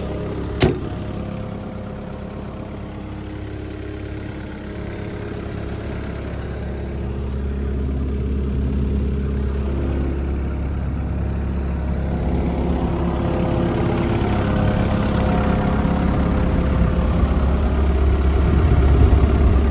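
Komatsu PC160LC-7 excavator's diesel engine idling steadily, getting gradually louder through the second half. A single sharp click comes under a second in.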